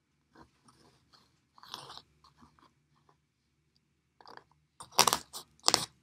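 Plastic gesso bottle and its cap handled close to the microphone: scattered short scrapes and clicks, then two loud noisy bursts near the end.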